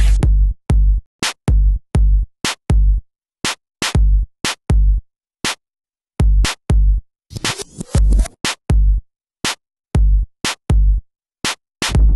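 Electronic drum-machine beat with deep bass kicks and sharp, bright hits, played in a choppy stop-start rhythm with short silent gaps between the hits.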